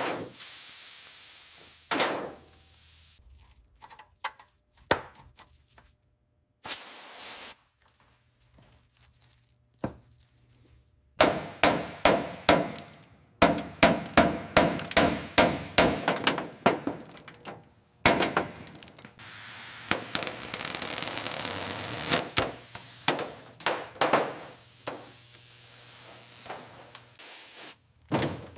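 Workshop impact noise: a few scattered knocks and clanks, then from about eleven seconds in a fast run of repeated strikes, two or three a second, until near the end.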